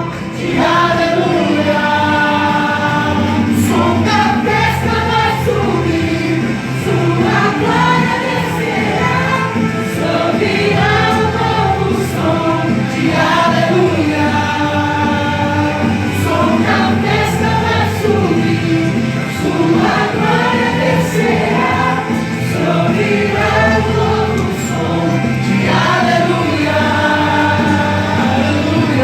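Choir singing a Christian worship song with instrumental accompaniment, the voices carrying sustained melodic lines over a steady bass.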